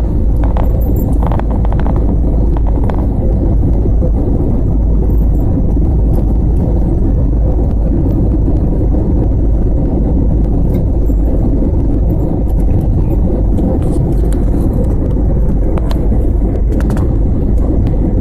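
Steady low rumble of an Airbus A320's engines and airframe during its landing, an even noise that holds at one level throughout, with a faint steady tone in it.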